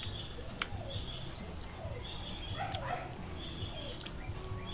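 Domestic animal calls and bird chirps: short calls that bend in pitch come every second or so, mixed with higher chirping and a few sharp clicks.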